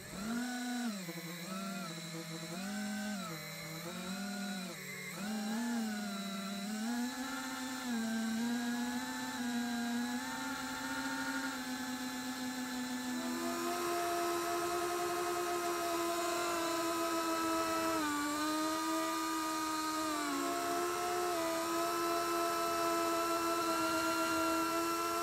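Mini FPV quadcopter's brushless motors and propellers whining, heard through its onboard camera. The pitch swings up and down with the throttle for the first several seconds, then holds steadier and steps up to a higher pitch about 13 seconds in.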